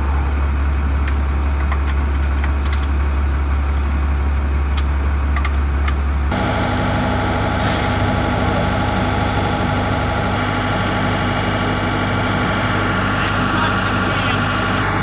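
Engine running steadily at idle, with scattered light clicks; the sound changes abruptly about six seconds in to a different steady engine tone.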